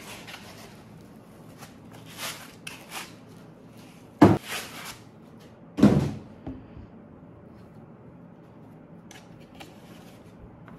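Unpacking handling noise: foam packing and a fabric laptop sleeve rustling, with two loud dull knocks about four and six seconds in as things are set down on the table.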